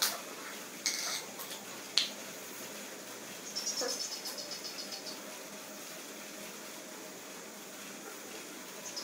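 A few sharp clicks and taps as small parts and tools are picked up and set down. About three and a half seconds in, a cricket chirps in a short, high, pulsing trill that fades out.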